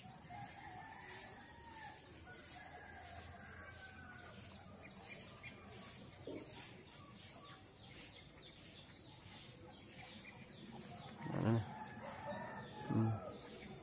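Faint, distant rooster crowing in long wavering calls over quiet rural background, with two louder short calls near the end.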